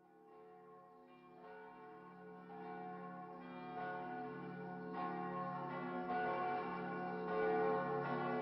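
Church bells ringing, fading in from silence and growing steadily louder, with a new strike every second or so.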